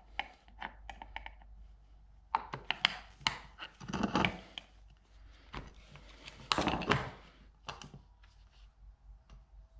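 Containers for two-part epoxy primer being handled while a component is measured out: scattered clicks and knocks, with two louder bursts of clatter about four and seven seconds in.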